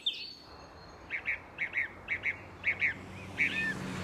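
Common nightingale singing: a run of short, high notes in quick pairs, repeated about every half second, then a different, more varied phrase near the end.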